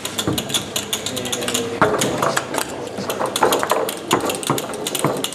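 Tecball foosball table in play: a rapid, uneven run of sharp plastic clicks and knocks from the ball, figures and rods, with a few harder knocks standing out.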